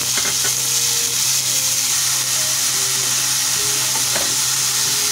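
Ground onion paste sizzling in hot oil in a kadai, a loud, steady hiss as the wet paste hits the oil.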